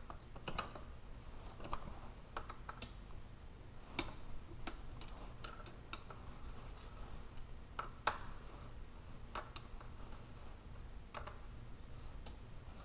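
Irregular light metallic clicks and taps of a 6 mm Allen wrench and loosened bolts being handled at a Yamaha YFZ450's rear axle, as the four bolts are undone for a chain-slack adjustment. A steady low hum runs underneath.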